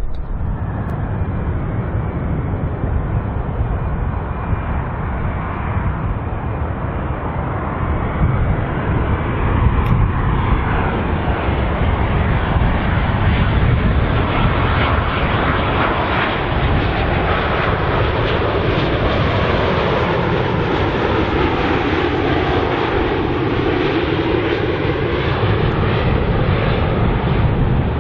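Twin-engine jet airliner on landing approach, its engines giving a steady rush that grows a little louder about a third of the way in. In the second half the tone slowly sweeps and shifts as the aircraft passes.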